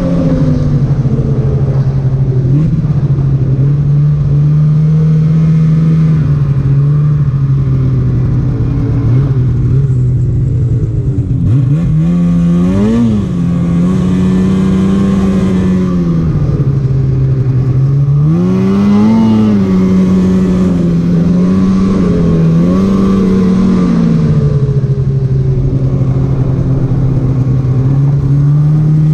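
Polaris Patriot 850 two-stroke snowmobile engine running under way. Its pitch holds steady, then rises and falls with throttle changes: a dip and a quick rev a little before halfway, another rev about two-thirds in, and a rise near the end.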